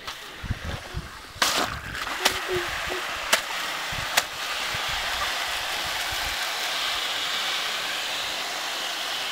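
Water from a garden hose hissing through a Bunch O Balloons filler as its cluster of water balloons fills. The hiss starts about a second and a half in, then holds steady and grows slightly. A few sharp clicks come in the first half.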